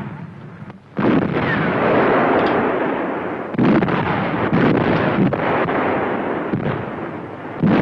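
Artillery fire: a string of heavy booms, the first about a second in and five more following at uneven intervals, each with a long rumbling decay. It is heard on a dull old film soundtrack.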